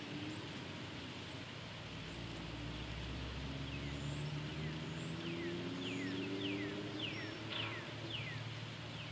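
Outdoor ambience: a bird repeating short down-slurred chirps throughout, with a few higher chirps. A distant vehicle engine drones underneath, slowly rising in pitch through the middle.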